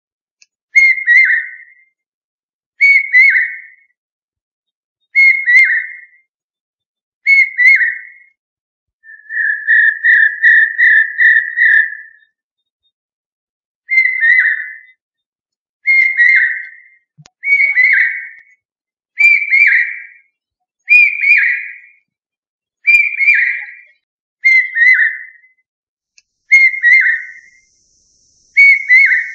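Loud whistled notes, each a short falling call, repeated about every two seconds, with a quick run of about six notes around ten seconds in.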